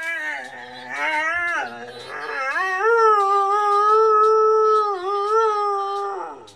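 Borzoi howling: a wavering opening note that dips and rises, then one long steady howl held for over three seconds that slides down in pitch as it ends.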